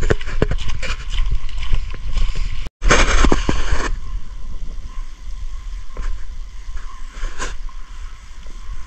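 Footsteps on a wet, slushy, icy road, a run of short clicks and squelches. After a sudden cut about three seconds in comes a second-long rush of noise, then steadier, quieter noise with a few faint clicks while a paint marker writes on the metal slats of a bench.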